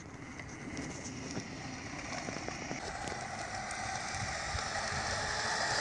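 Outdoor noise: a steady hiss with many small crackles, slowly growing louder.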